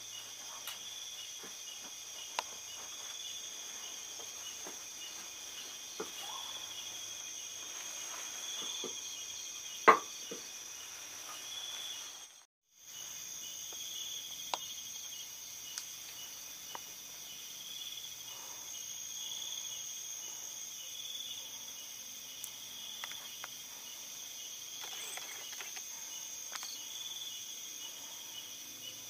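Night insects, crickets, chirring steadily in two high continuous tones, the lower one swelling and fading in a regular pulse. Scattered small clicks, one sharper click about a third of the way in, and the sound drops out for a moment near the middle.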